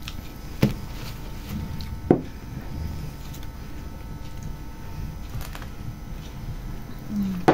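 Quiet eating sounds as two people chew rolled lahmacun and sip drinks through straws, with two sharp clicks, one about half a second in and one about two seconds in, and a brief hum near the end.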